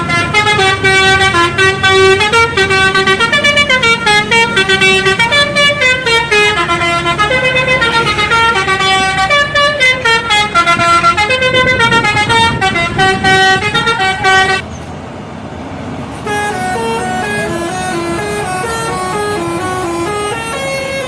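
Indonesian bus telolet horn, a set of musical air-horn trumpets, playing a fast stepping multi-note melody over a low engine rumble. It cuts off suddenly about two-thirds of the way through, and a second, quieter telolet melody starts a couple of seconds later.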